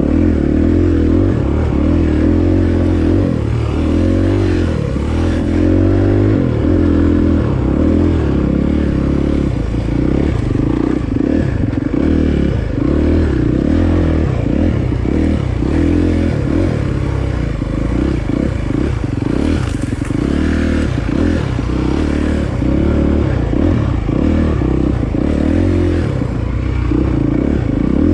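Dirt bike engine running under way, its pitch rising and falling over and over as the throttle opens and closes.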